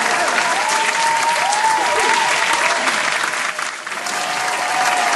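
Large crowd of fans cheering, screaming and clapping continuously, with high voices rising and falling over the noise of the clapping. The crowd noise dips briefly a little before the end, then swells again.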